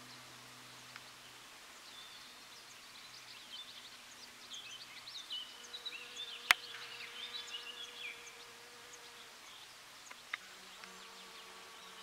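Honeybee buzzing, a steady low hum that shifts higher near the end, with small birds chirping in the background and a single sharp click about halfway through.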